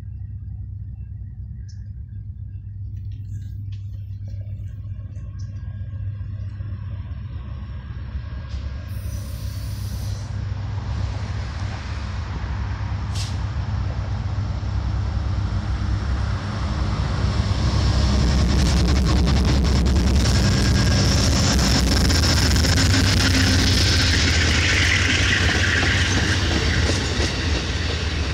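Amtrak passenger train with a diesel locomotive approaching and passing close by. The rumble of the engine and the wheels on the rails grows steadily louder and is loudest over the last third or so.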